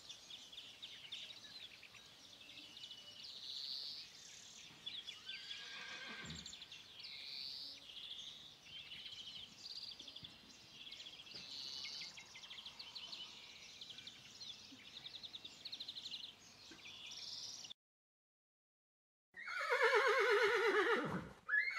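Small birds chirping steadily in high, rapid bursts. A faint horse whinny falls in pitch about six seconds in. After a moment of complete silence, a loud horse whinny that drops in pitch comes near the end.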